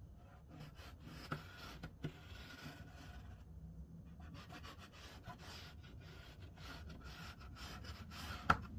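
Faint scratching and rubbing of chalk drawn along a clear curved ruler on fabric, marking a cutting line, with a few light clicks from handling and a sharper one near the end.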